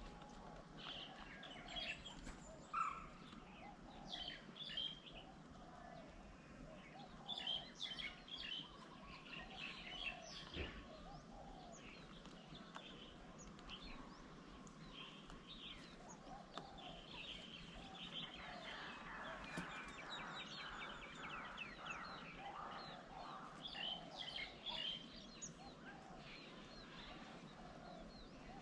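Several wild birds chirping and calling at once, short high chirps overlapping with a lower repeated call, with a denser run of rapid chirping about two-thirds of the way through.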